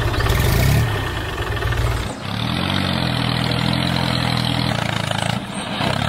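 Tractor engine running steadily with a low, throbbing note. Its pitch changes abruptly about a second in and again about two seconds in, and it dips briefly near the end.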